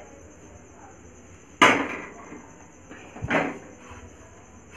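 Two sharp clanks of metal kitchenware, a steel bowl knocking against the kadhai or stove, about a second and a half apart; the first is the louder.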